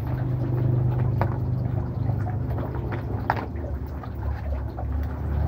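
A steady low motor hum, with a few sharp clicks of a clear plastic blister tray as headset earbuds are pulled out of it.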